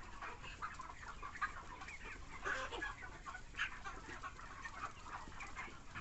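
A flock of broiler chickens calling all together: many short, overlapping clucks and chirps, a few louder ones standing out now and then.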